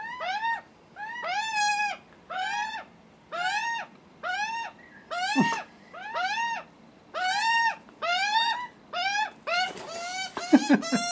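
Juvenile Australian magpie begging for food: a long run of harsh, screaming squawks, each rising and falling in pitch, repeated about once or twice a second, with a quicker, louder flurry near the end.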